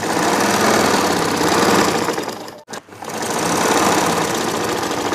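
Black classic Singer-pattern Butterfly sewing machine, driven by an electric motor, running fast as it stitches through a thick bedcover and its silicone fibre filling. It stops for a moment about two and a half seconds in, then runs on again.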